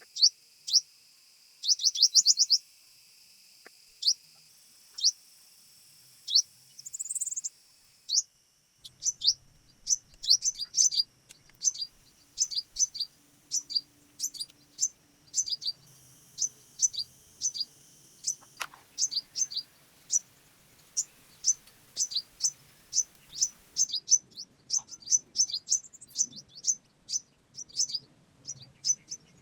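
Forest bird singing: short, high, falling chirps, a few scattered at first with a quick rattling run, then repeated steadily about twice a second.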